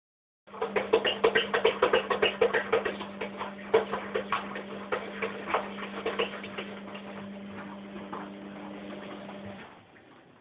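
Washing machine running with a steady hum and rapid clicking and tapping, several taps a second, thinning out over time; the hum and clicking stop about nine and a half seconds in.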